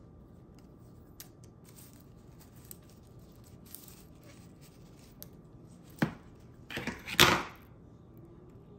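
Dry, dead houseplant leaf crackling faintly as fingers handle it, then a sharp snap about six seconds in and a louder crinkling tear about a second later as the dead leaf is pulled away.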